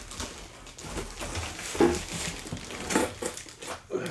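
Cardboard packing scraping and rustling as it is pulled out of a corrugated shipping box, with a few sharper scrapes or knocks about two, three and four seconds in.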